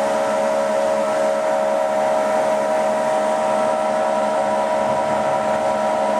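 Hankook VTC 85R CNC vertical borer running with its chuck spinning: a steady, loud machine whine of several even tones over a continuous hiss.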